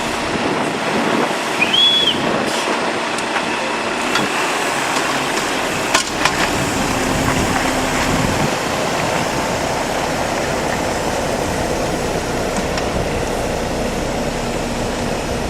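Steady engine and machinery noise of road-work vehicles running, as on a slurry-seal job, with a short squeak about two seconds in and a sharp click about six seconds in.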